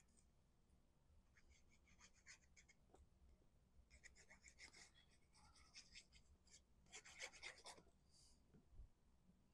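Very faint scratchy, crackly rubbing as a fine-tip glue bottle is squeezed and drawn along cardstock, in irregular patches, with the paper panel being handled.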